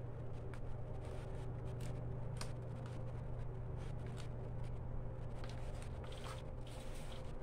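Scattered light clicks and rustles of hands handling plastic bottles, over a steady low hum.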